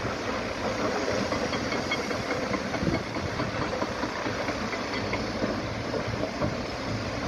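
Tracked hydraulic excavator working a rock pile some way off: a steady, even noisy engine rumble with a scatter of small crackles.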